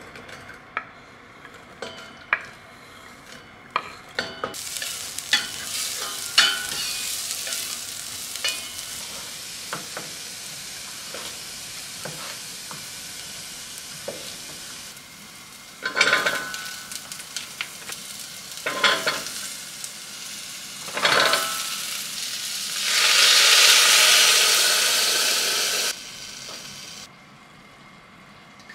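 Home cooking sounds: food sizzling steadily in a pot, then a series of sharp knocks and clinks of a knife and utensils. Near the end comes a loud rushing hiss lasting about three seconds.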